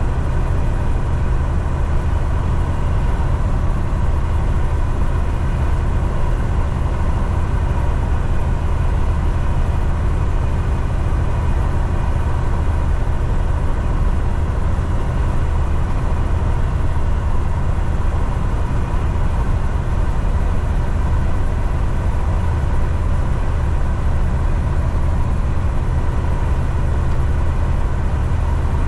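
Semi-truck heard from inside the cab while driving: the diesel engine's low, steady drone mixed with road and tyre noise, holding even throughout.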